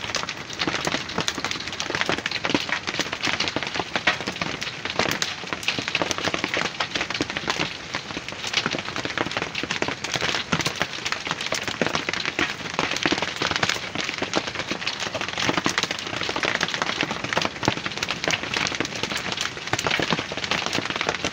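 Hail and heavy rain pelting bare earth: a dense, steady clatter of countless small impacts.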